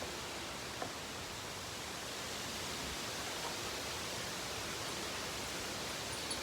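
Steady rushing wind noise from strong pre-hurricane gusts.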